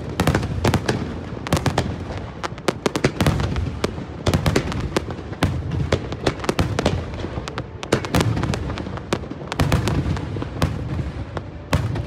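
Fireworks display: a dense, unbroken barrage of aerial shells launching and bursting. The bangs follow one another several times a second, some in quick clusters.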